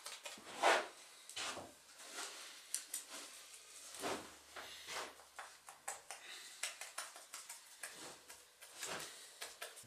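Paintbrush scrubbing and dabbing over cured fiberglass on a plywood board, in irregular scratchy strokes with sharp clicks and knocks, the loudest a little under a second in.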